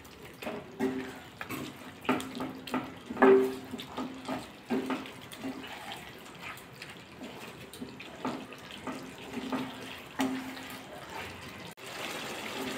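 A spatula stirring chicken pieces through thick, wet gravy in a non-stick pan: irregular squelching and scraping with soft knocks against the pan.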